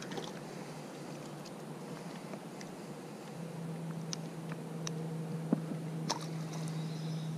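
Scattered small clicks and rustles of a small smallmouth bass being handled and unhooked, with a few sharp ticks in the second half. A steady low hum comes in about three and a half seconds in and carries on.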